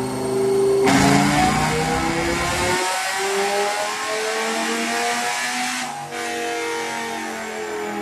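Dodge Viper's stroker V10 on a chassis dyno, going to full throttle suddenly about a second in and then revving steadily higher through a dyno pull.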